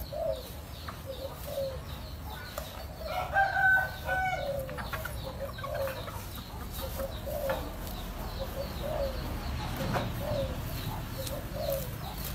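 Zebra dove (perkutut) cooing in a steady series of short notes, mixed with chickens clucking. About three seconds in, one louder, drawn-out chicken call stands out.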